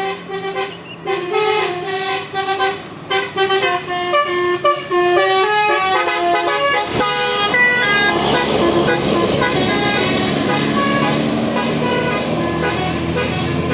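Bus 'telolet' musical multi-tone horn playing a quick tune of stepped notes for about seven seconds. Then a steady rush of bus engine and road noise with a low drone.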